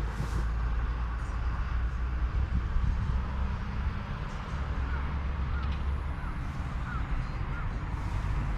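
A bird calling five times in a row, short arched notes about half a second apart, over a steady low rumble.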